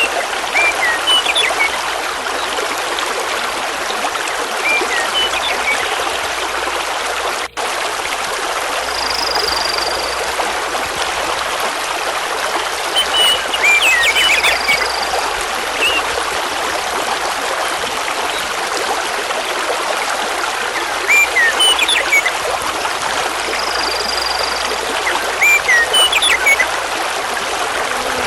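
Mountain river rushing steadily over a bed of large stones, with small birds singing short chirps and whistles every few seconds over the water.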